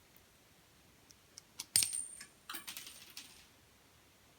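A small metal retaining clip from a padlock core springing off with a sharp click and a thin, high metallic ring, then bouncing a few times on the floor.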